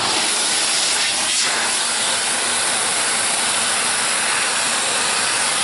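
Vacuum cleaner running steadily, switched on suddenly, sucking up fireplace ash from around a wood-burning stove's open door; a loud, even hiss.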